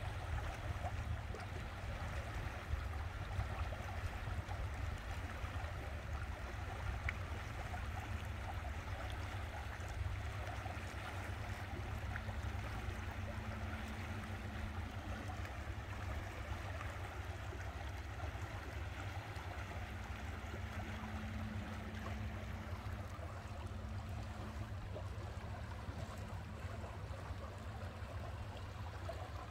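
Steady rush and gurgle of moving water around a boat, over a constant low rumble, with a faint hum coming and going.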